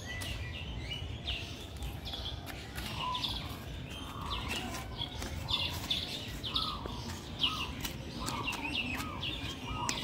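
Many birds chirping and calling together: a dense run of short, high chirps, busier in the second half, with some lower curved whistling calls among them.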